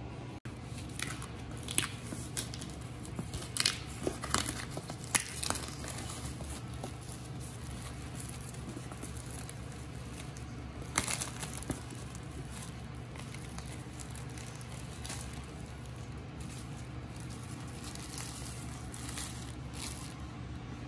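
Clear plastic shrink wrap being torn and peeled off a cardboard model-kit box, crinkling and crackling in irregular spells, busiest in the first few seconds and again about eleven seconds in.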